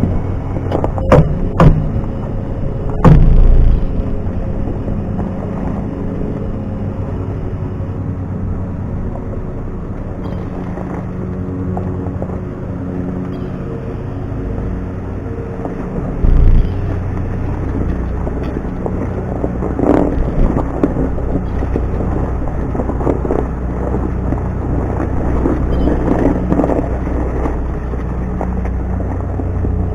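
Tractor engine running steadily while backing a baler, with a few loud clunks in the first three seconds and another about halfway through.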